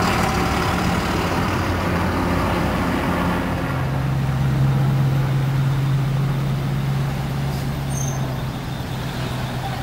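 Heavy road vehicle's engine running, a steady low drone that settles onto one stronger, lower hum about three and a half seconds in.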